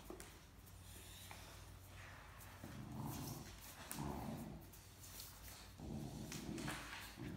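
Great Dane puppy growling in short low bursts while tugging at a stuffed toy, starting a little under three seconds in and coming about four times. It is a playful "little puppy growl".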